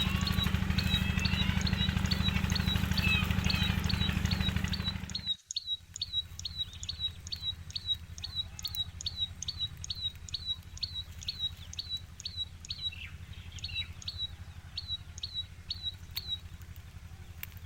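Tailorbird calling: a short, sharp chirp repeated evenly about twice a second. For the first five seconds a loud steady low hum lies under it, then stops abruptly.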